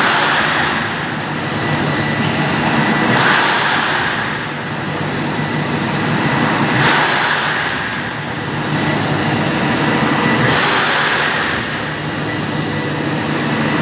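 Centrifugal compressor of a 1300-ton chiller surging: a loud rushing whoosh that swells and fades about every three and a half seconds over steady high-pitched tones. The evaporator pressure is running low, which the operator puts down to the chiller being short of refrigerant.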